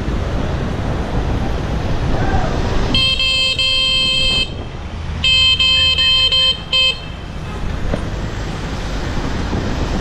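Loud Mini bicycle horn, which makes a car-horn sound, blasting at a car turning left across the bike lane. It sounds a long blast about three seconds in, a second long blast after a short pause, and a quick toot just after, over steady traffic and road noise.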